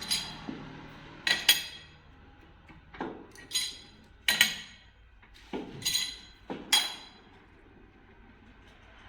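Hammer blows on steel, about ten irregular strikes, several in quick pairs, each ringing briefly.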